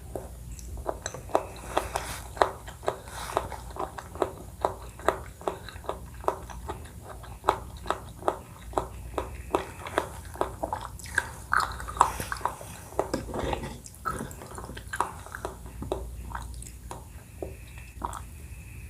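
Close-miked chewing of Thai coconut-milk dessert: wet mouth clicks and smacks, about two to three a second.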